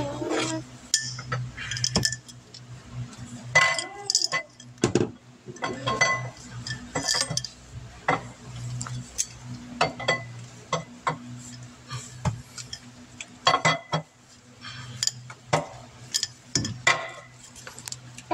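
Irregular metal clinks and clicks as a new camshaft is worked into a 5.7 Hemi engine block and the cam gear and timing chain are fitted, over a steady low hum.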